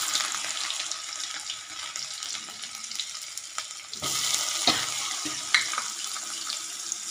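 Chopped ginger-garlic and cumin sizzling in hot oil in a kadhai. About four seconds in, chopped onions are dropped into the oil, and the sizzle jumps louder, with a few sharp clicks just after.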